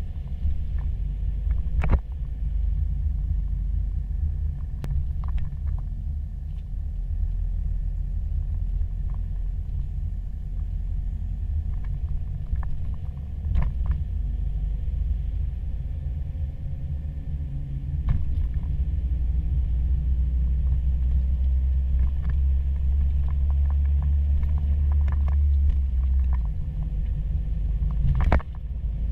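Low, steady rumble of a moving car's engine and tyres heard from inside the cabin, heavier for a stretch in the second half, with a few sharp knocks along the way.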